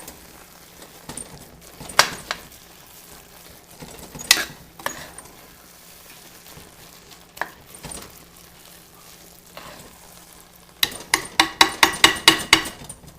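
Spoon stirring onions and flour in a Dutch oven, knocking against the pot now and then, with a quick run of clanks near the end.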